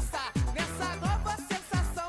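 Brazilian funk carioca (baile funk) music with a heavy kick drum sliding down in pitch about two to three times a second, under chopped vocal lines.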